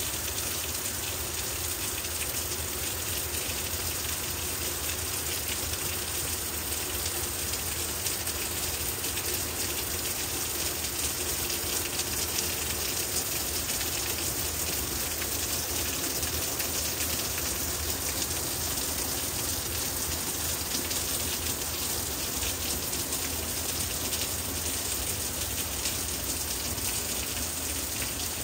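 Steady rain falling on the leaves of garden trees and shrubs: an even hiss of countless drops that holds constant throughout.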